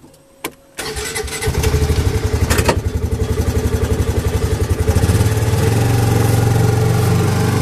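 Polaris Ranger utility vehicle's engine started with the key: a click, then about a second in the engine catches and runs with a steady pulsing note. A sharp clunk comes a couple of seconds later, and about five seconds in the engine speeds up and gets louder.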